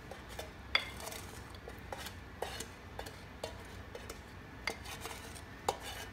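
A wooden spoon scraping and knocking against a metal pan as hot caramel is scraped out of it into a glass baking dish, giving faint, irregular clicks and taps.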